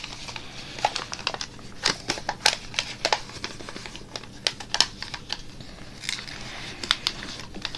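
A sheet of paper being folded and pressed by hand into a paper airplane: irregular crinkles and crackles as the thick folds are creased and the wings are opened out.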